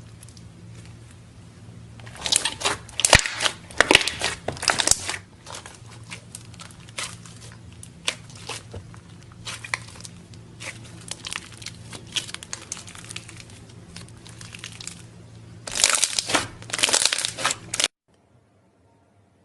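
Crunchy slime being squeezed and pressed, giving dense crackling and crunching, loudest in bursts about two to five seconds in and again near the end. The sound then cuts off suddenly.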